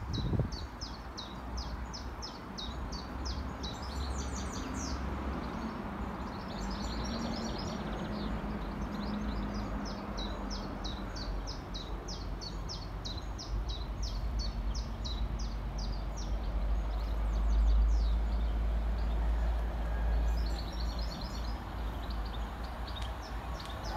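Small birds chirping in rapid, repeated runs of calls over a low rumble from a Class 66 diesel locomotive approaching at a distance with a container freight train. The rumble swells about three-quarters of the way through.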